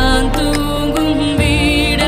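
Tamil film song music: a held melody line with a wavering vibrato over a steady bass.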